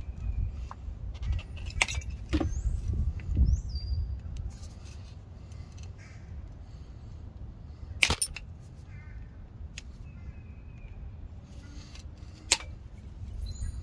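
Pliers clicking and snapping against a rusted pivot washer (C-clip) on a drum brake shoe as it is peeled away piece by piece: a few sharp metallic clicks, the loudest a double snap about eight seconds in and another near the end, over low wind rumble.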